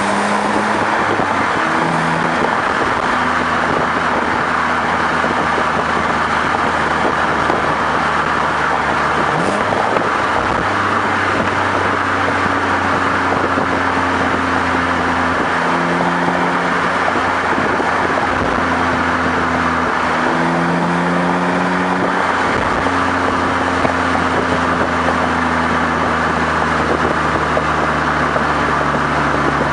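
BMW engine's exhaust heard right at the twin tailpipes while driving. It is a steady drone whose pitch shifts several times as the revs change, under heavy wind and road noise.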